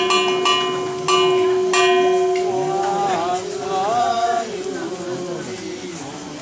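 A bell struck about four times in the first two seconds, its ringing tone carrying on. Then a voice chanting in the Buddhist nenbutsu ritual.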